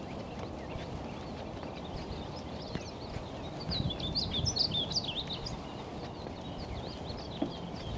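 Many small birds chirping, a dense cluster of quick calls about halfway through, over a steady low background noise.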